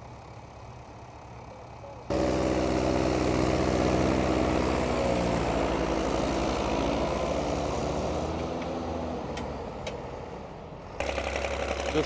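Vintage four-wheel-drive diesel tractors running steadily under load while pulling ploughs. A fainter engine is heard for about two seconds, then a much louder one whose note drops slightly and fades over the next several seconds, then another engine cuts in just before the end.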